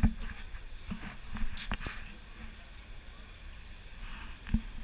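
Quiet outdoor background noise with a few soft, irregular thumps and faint distant voices.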